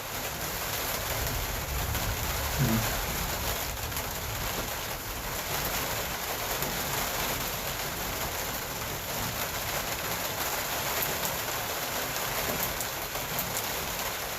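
Heavy rain falling steadily on and around a parked truck, heard from inside it. A low rumble is heard in the first few seconds, and a short low sound about three seconds in.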